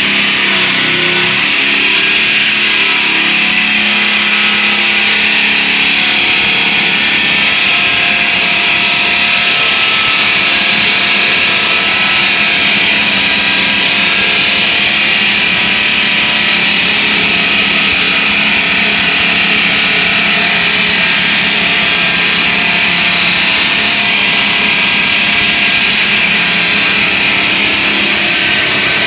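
Automatic gantry saw's large circular blade cutting through a wet concrete slab: a loud, steady grinding whine with a strong high tone that holds without a break.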